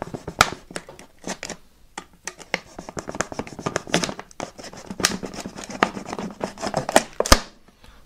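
Utility knife blade cutting and scraping into the thin plastic base of a PET bottle, with the bottle crinkling in the hands: an irregular run of clicks and scratches, with a sharp click near the end.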